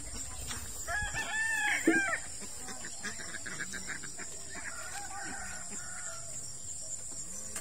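A rooster crowing once, about a second in, with fainter calls after it, over a steady high drone of crickets.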